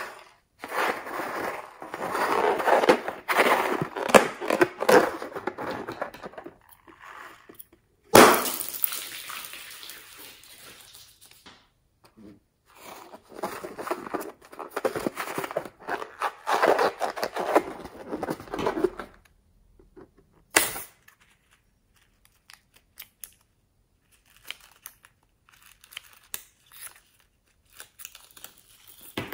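A filled rubber balloon stress ball squeezed and kneaded in the hands, its rubber rubbing and crinkling in bursts, with a sudden loud crackle about eight seconds in. Near the end, scissors snip at the balloon in soft clicks.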